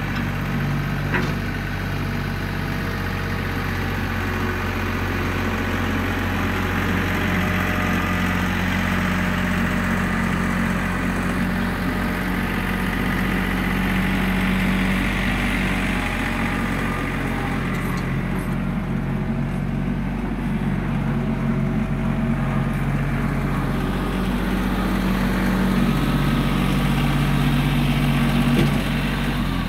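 Compact tractor engine running steadily while pulling a box blade through dirt, getting louder near the end as it comes close.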